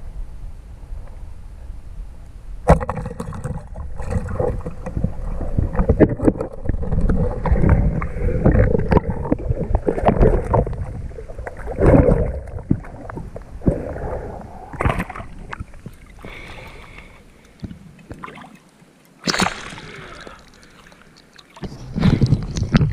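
Water splashing and sloshing as a speared snapper thrashes on the surface with the spear in it, in irregular bursts of splashes and knocks. A sudden sharp knock comes about three seconds in, the splashing is heaviest around the middle, and it eases before one more loud burst near the end.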